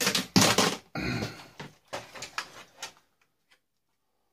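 Wiring being pulled out of an old tube television: a couple of loud scraping rustles, then a few sharp clicks.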